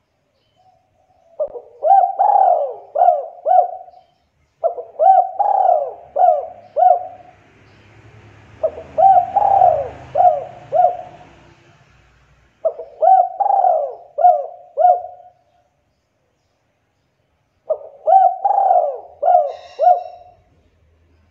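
Spotted dove cooing: five phrases of four or five coos each, every note rising and falling in pitch, with short pauses between phrases.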